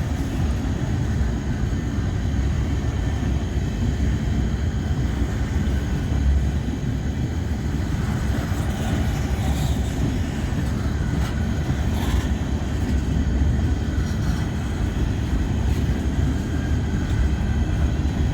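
Freight train rolling past at low speed: a steady low rumble of wheels on rail, with a few faint clicks and clanks about halfway through.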